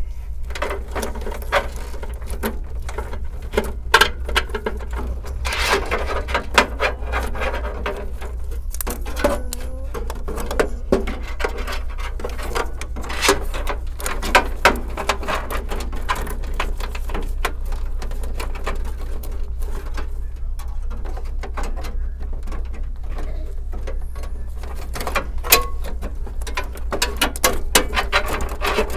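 An Asus Prime B560M motherboard being handled and shifted into place inside a steel PC case, giving irregular light clicks, knocks and scrapes, over a steady low hum.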